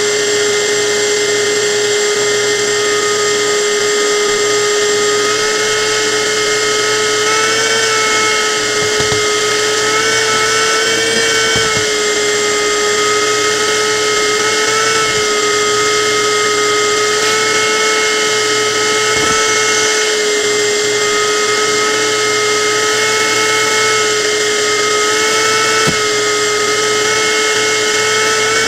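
Electric motor running continuously with a high, steady whine, its pitch wavering slightly now and then as if under changing load.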